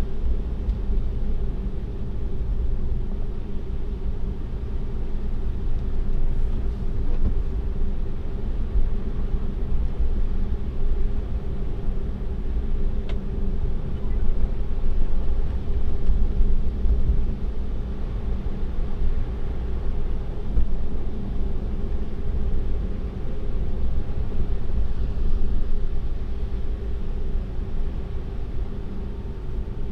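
Steady low rumble of road and tyre noise inside a Tesla's cabin as it drives on a snowy road, with no engine note. There is one brief click about 13 seconds in.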